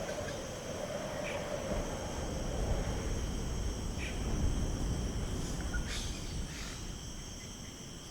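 Outdoor nature ambience: a low wind-like rumble under a steady high insect drone, with a few faint short bird chirps.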